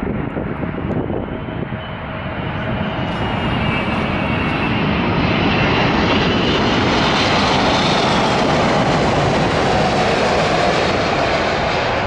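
Airbus A380's four jet engines running, the roar growing steadily louder over the first several seconds and then holding loud and steady.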